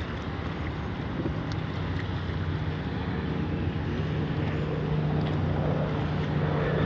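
A boat's motor running steadily with a low hum, growing a little louder about halfway through, with wind buffeting the microphone.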